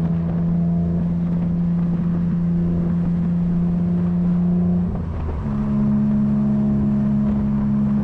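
BMW E30 320i's M20B20 2.0-litre straight-six running through a Scorpion exhaust at a steady cruise on the road. The note dips briefly about five seconds in, then settles steady at a higher pitch.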